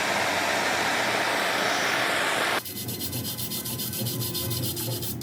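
A power tool works steadily on a plastic radiator tank with a harsh, even rasping sound, as in sanding or grinding. It cuts off about two and a half seconds in, leaving a quieter sound of rapid, regular ticks with a few steady tones.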